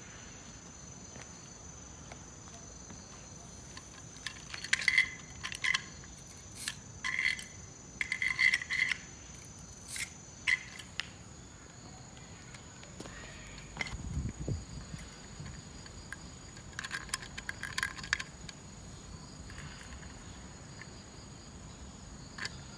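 Steady high-pitched drone of insects, with clusters of short, bright sounds a few seconds apart and a single low thump about halfway through.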